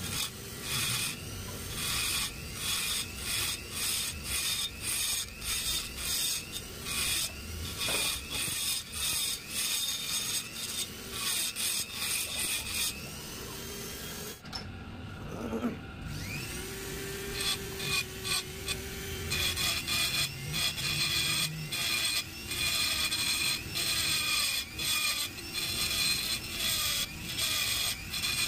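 Rasping strokes of a hand tool worked back and forth over a motorcycle's aluminium crankcase, flattening a welded repair. The strokes repeat about once a second, with a short break about halfway through.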